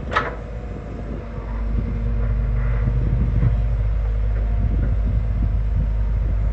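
Hyundai 220LC excavator's diesel engine running steadily, picking up load and getting louder about two seconds in as the hydraulics work. A single sharp clank sounds right at the start.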